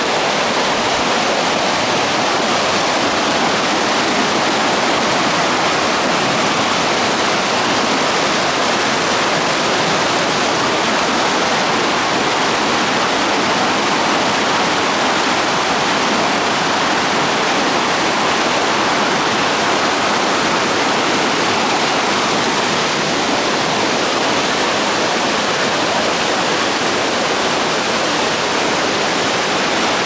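A waterfall, with water pouring over rocks into a pool: a steady, even rush that does not change.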